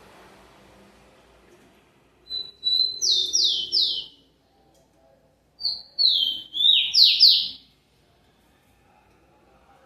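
Rufous-collared sparrow (tico-tico) singing twice, about three seconds apart: each song a short high whistle followed by three loud downward-slurred notes.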